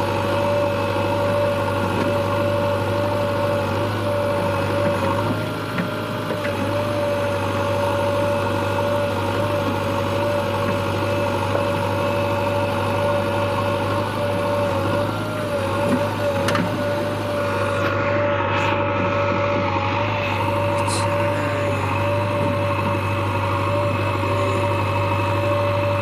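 JCB 3DX backhoe loader's diesel engine running steadily under working load while the backhoe arm digs, with a constant high tone over the engine.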